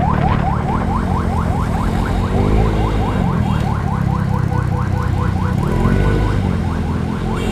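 Electronic emergency siren in rapid yelp mode, about four rising chirps a second, over a motorcycle engine running and changing revs; the chirps die away near the end.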